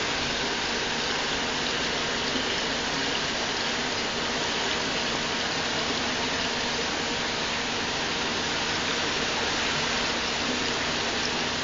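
Steady rush of running water, an even hiss that does not change in level.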